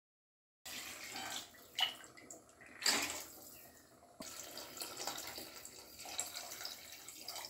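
Water poured in a stream into thick curry in an aluminium pressure cooker, splashing into the liquid, with two louder splashes in the first three seconds. The pour breaks off sharply about four seconds in and picks up again as a steady stream.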